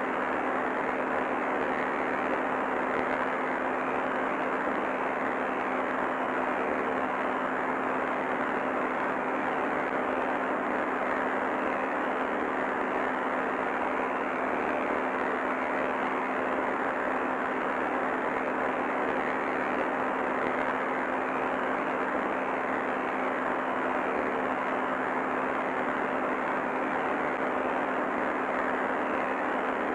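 Steady, dull static hiss with a low hum running under it, unchanging throughout: dead-air noise on a degraded broadcast recording.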